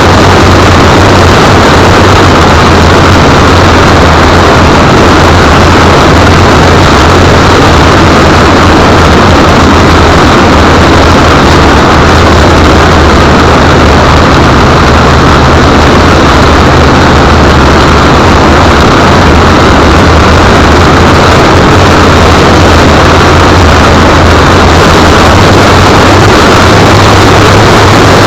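Steady, loud, distorted rush of wind and propeller-motor noise from a camera riding under a flying RC plane. The small camera microphone is overloaded by it.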